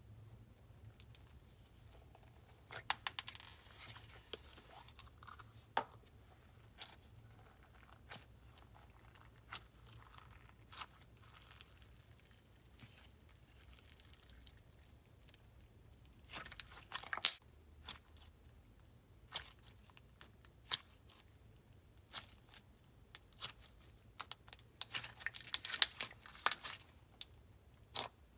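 Clear glitter slime being handled and squished by hand: scattered sticky pops and clicks, with denser crackling a few seconds in, around the middle and near the end.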